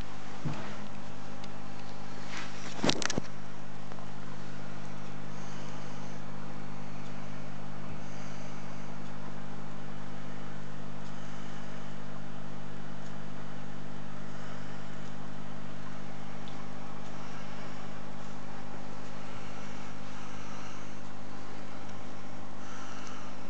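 Steady low electric hum of the aquarium's pump, with one short knock about three seconds in.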